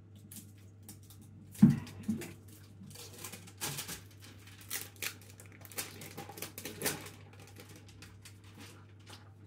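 Items being handled on a kitchen counter: scattered clicks, rustles and knocks, the loudest knock about a second and a half in, over a faint steady low hum.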